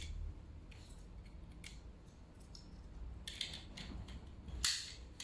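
A few faint, scattered clicks and rustles of small objects being handled over a low background hum, the sharpest about four and a half seconds in.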